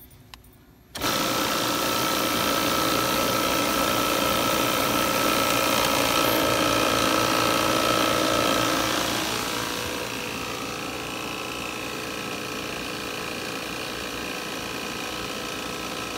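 Appion G5Twin refrigerant recovery machine switched on about a second in and running steadily, pumping refrigerant out of the unit. Around nine seconds in its sound drops a little and changes pitch as its input valve is adjusted.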